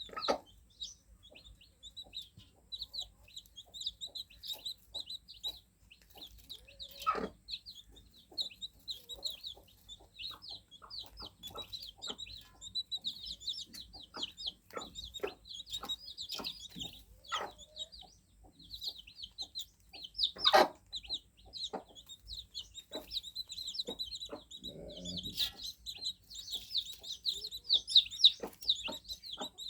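A brood of newly hatched chicks cheeping continuously, many short high-pitched peeps overlapping. Scattered clicks and knocks run through it, the loudest about seven and twenty seconds in.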